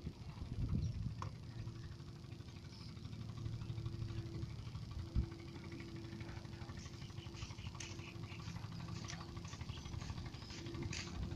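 A steady low engine-like hum with a low rumble, briefly broken about halfway. From about the middle on, a run of quick faint clicks joins it.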